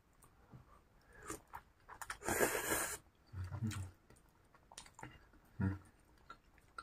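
A person chewing fried egg-coated tapioca skewers (cilor) in sauce close to the microphone, with wet mouth noises and small clicks. A short, loud noisy burst comes a little over two seconds in.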